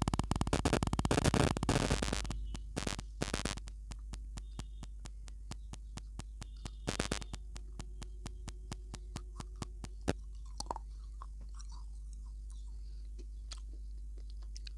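Close-miked biting and crunching of a hard, dry white block: a dense burst of loud crunches in the first two seconds, then sharp crackles a few times a second as it is chewed, thinning out after about ten seconds.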